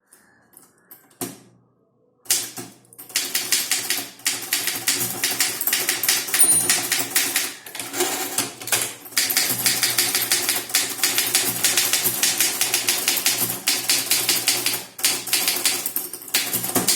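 Typewriter typed at speed, about 60 words a minute: a dense, rapid stream of key strikes with a few brief pauses. It starts about two seconds in, after a single earlier clack.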